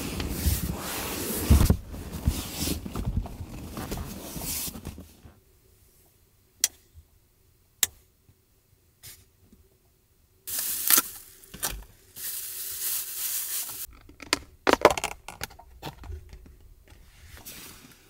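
Rustling and scraping of clothes and bedding as people move about in a cramped space, then a quieter stretch broken by a few sharp clicks, and more bursts of rustling near the end.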